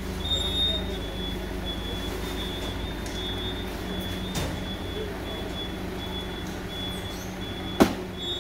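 A steady low engine hum, with a faint high squeak repeating two to three times a second and one sharp click near the end.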